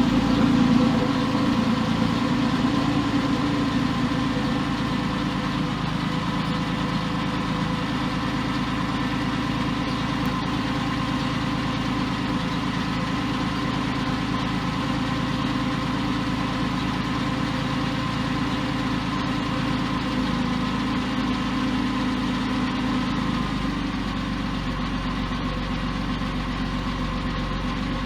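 Porsche 996 Carrera 4S's M96 flat-six engine idling evenly, settling to a steady idle in the first second. It runs without the tick the owner had put down to a sticky hydraulic lifter.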